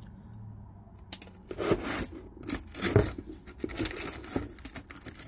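Plastic packaging crinkling and tearing as it is handled, an irregular run of rustles and crackles starting about a second in.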